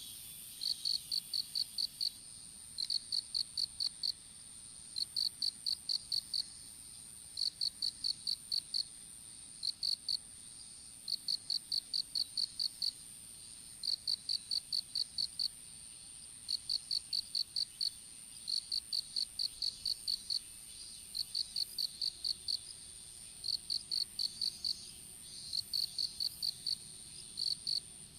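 Insects chirping. One calls in short bursts of about five to eight chirps, a burst every second or two, over a steady high-pitched trill from another insect.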